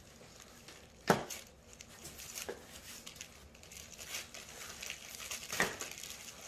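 A small cardboard box being pulled open by hand: cardboard crinkling and rustling, with a sharp snap about a second in and another, weaker one near the end.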